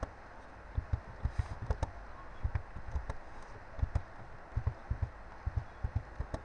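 Typing on a computer keyboard: an uneven run of key taps, about three or four a second, heard mostly as dull thumps.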